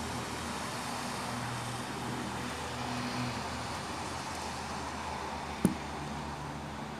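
Steady outdoor road-traffic noise with a low engine hum, and one sharp click about five and a half seconds in.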